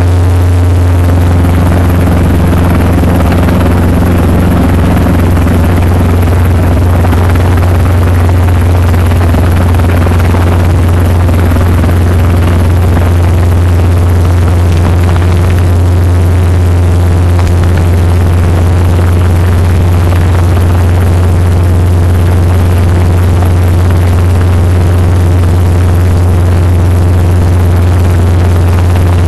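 Robinson R22 Beta II helicopter running with its rotor turning, heard inside the cabin: a loud, steady low drone from the four-cylinder Lycoming piston engine and the rotor.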